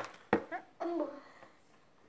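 Two sharp knocks, then a child's short wordless vocal sounds lasting under a second.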